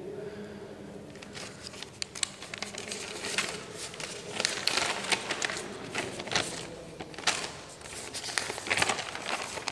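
Chalk on a blackboard: a dense run of short scratches and taps as it writes, starting about a second in.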